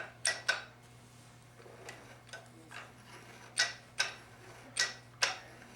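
Scattered light metallic clicks and taps, about eight in all, as parts of a 4L60E transmission input drum are handled, over a faint steady low hum.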